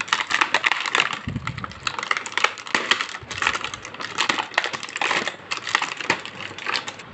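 Rapid crackling and clicking of plastic being handled as a toy set is unboxed, with a brief low thump about a second in.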